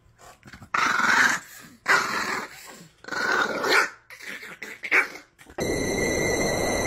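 A Chihuahua growling in several rough bursts about a second apart while mouthing a person's hand in play. About five and a half seconds in, a steady hissing noise with a thin high tone takes over.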